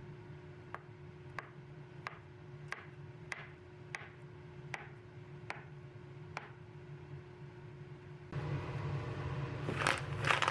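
Chef's knife chopping a thin egg omelette into strips on a bamboo cutting board: about nine crisp taps of the blade on the wood, a little over one a second. Near the end, a crinkly plastic noodle package rustles as it is handled.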